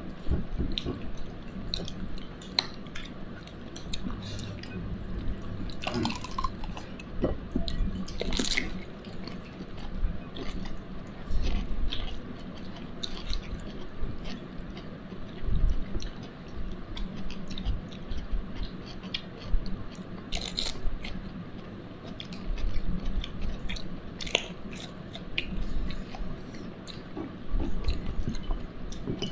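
A person chewing food close to the microphone, with soft wet mouth sounds and scattered short clicks, a few of them louder.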